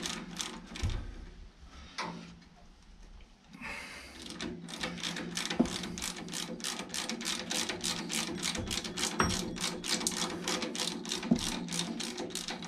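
Ransomes Marquis lawnmower's drive chain and sprocket turned by hand, giving rapid, even clicking at about four clicks a second, with a short pause near the start. A steady low hum sits underneath.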